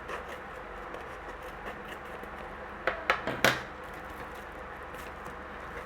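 Unboxing handling of a small electronics package: a quick cluster of sharp clicks and crinkles about three seconds in, over a steady background hiss.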